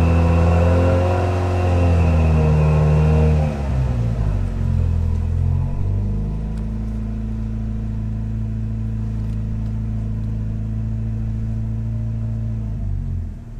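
Toyota AW11 MR2's turbocharged four-cylinder engine heard from inside the cabin, held at raised revs for a few seconds, then dropping back and settling to a steady idle. The owner calls the sound nasty.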